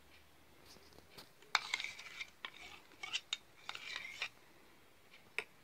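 A spoon scraping and clinking against the mixer jar and bowl as the blended yogurt and cream is scooped out. A run of short scrapes and clinks begins about a second and a half in and goes on to about four seconds, with one more click near the end.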